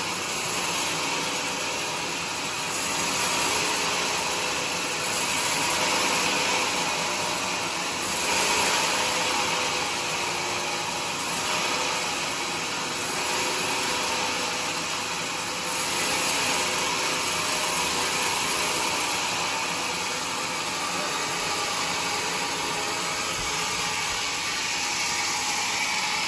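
Band sawmill blade cutting lengthwise through a large teak log, a steady noisy rasp of blade in wood with the machine running, swelling and easing every couple of seconds as the cut goes on.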